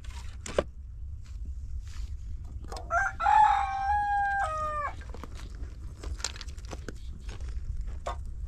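A rooster crowing once, about three seconds in: a single call of about two seconds that rises, holds steady and drops at the end. Scattered clicks and rustles sound before and after it.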